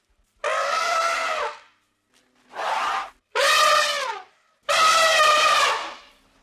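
An animal calling four times: long pitched cries, each about a second long and dropping slightly in pitch as it ends.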